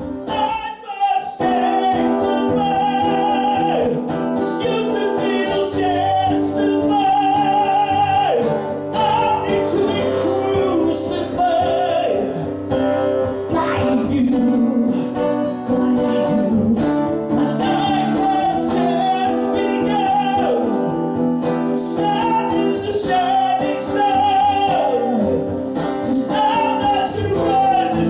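Live rock ballad: a male singer holding long notes with a wavering vibrato and sliding down between them, over strummed guitar. The music drops away briefly about a second in.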